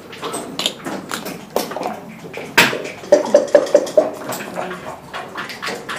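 Backgammon checkers clacking against each other and on the board as a hand moves and gathers them. One sharp clack comes about two and a half seconds in, then a quick run of clacks between about three and four seconds.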